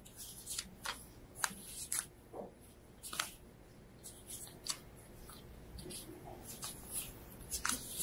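Paper banknotes being handled close by: a string of short, crisp rustles and crackles, irregular, one or two a second.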